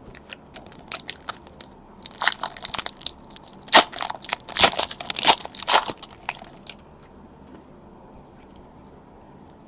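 Crinkling and crackling of a trading-card pack wrapper being handled and torn open: a run of sharp crackles, thickest in the middle and dying away after about six and a half seconds.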